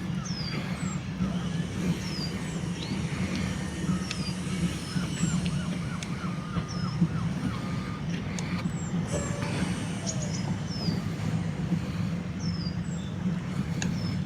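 A steady low rumble throughout, with small birds chirping repeatedly over it in short, high, falling chirps.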